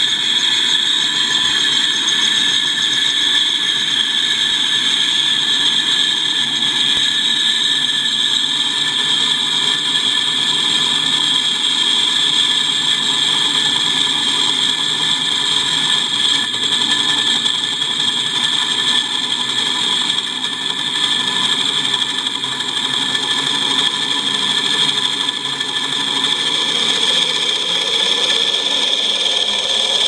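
Simulated helicopter engine sound from a MrRCSound V4.1 sound system, played through transducers on a foam-block resonator mounted on a quadcopter: a steady, loud engine hum with a high whine. The quad's propellers spin up under it, and lower tones rise in pitch over the last few seconds as it powers up for lift-off.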